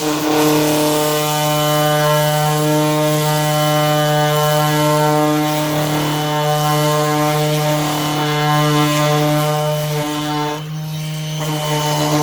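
Bauer 20V cordless detail sander running steadily with a constant droning hum while it sands paint off a panel edge. The sound dips briefly about ten and a half seconds in.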